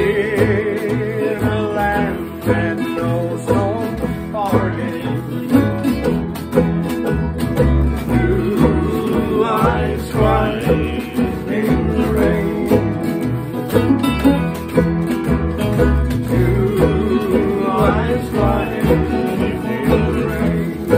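Acoustic string band playing a country tune with a steady plucked rhythm: strummed acoustic guitars, mandolin, washboard and upright bass.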